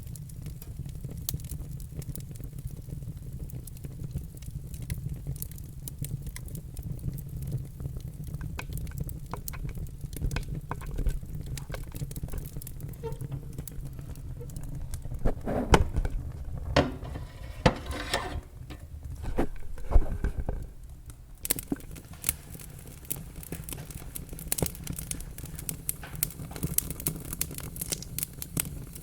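Wood fire in a fireplace crackling and popping over a steady low rumble, with a busier run of louder pops about halfway through.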